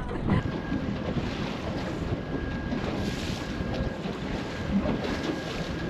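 Boat motor running on the water, with wind buffeting the microphone and water washing along the hull.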